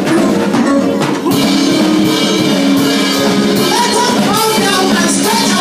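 Live African praise music with singing, drums and guitar, played at a steady, loud level.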